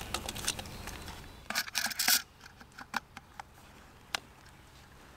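Shotgun being handled: metal clicks and rustling as the gun is worked and shifted, a quick run of sharp clicks about a second and a half in, then a few single clicks.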